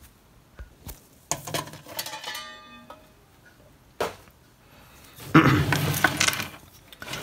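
Bench handling of a metal battery-charger case: light clicks, a clatter of metal clinks that ends in a brief ringing tone, a sharp click, then a louder stretch of scraping and rubbing about five seconds in.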